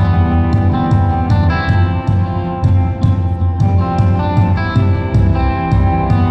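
Live rock band playing an instrumental passage: electric guitar over a drum kit keeping a steady beat.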